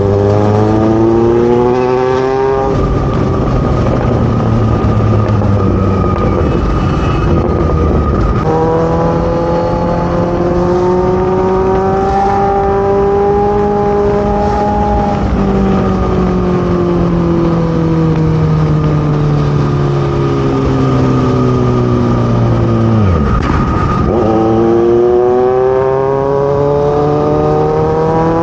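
Kawasaki Z900's inline-four engine through a full-system aftermarket exhaust, under way. It revs up at the start, steps down in pitch with a gear change, and pulls steadily. It then falls off slowly for several seconds as the throttle closes, and revs up again steeply near the end.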